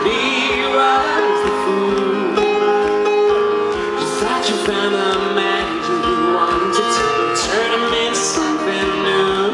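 Live pop concert: a male singer singing into a microphone over his backing band, loud and continuous.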